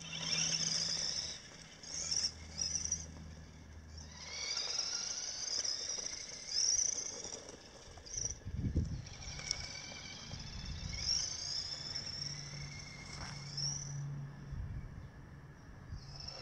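Tamiya DT-02 Rough Rider RC buggy's 540 brushed motor and steel-pinion gears whining, the pitch rising and falling with throttle as it drives over grass. There is a low thump about nine seconds in.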